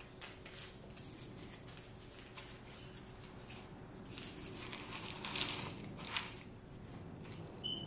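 Crinkling and rustling of a microwavable macaroni-and-cheese cup's packaging being opened and handled, with light scattered rustles and two louder rustles about five and six seconds in.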